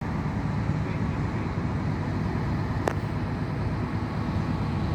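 Heavy machinery engine running steadily with a low rumble, with one short sharp click about three seconds in.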